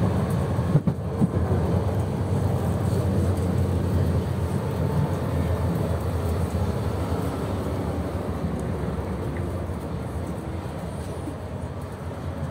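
A tram running, heard from inside the passenger saloon: a steady low rumble of the moving car on its rails, with a couple of sharp knocks about a second in. The rumble grows gradually quieter toward the end.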